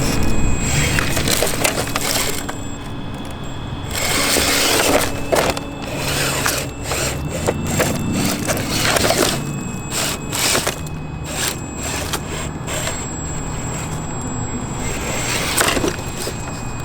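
An RC scale crawler driving over backyard dirt and rocks, with crunching and cracking noises from its tires, under background music with a steady bass line.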